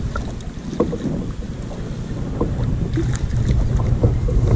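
Wind buffeting the microphone: a low, steady rumble that grows louder toward the end, with scattered light knocks and clicks.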